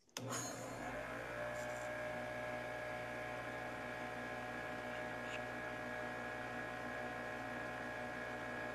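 Electric motor of a shop-made thread-cutting jig on a wood lathe starting up, its pitch rising for about half a second, then running at a steady speed with an even hum and whine.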